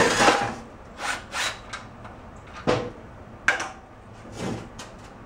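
Hand tools and metal parts being handled on a snowblower: a brief scrape to start, then scattered short knocks and clicks, the sharpest about two and a half and three and a half seconds in.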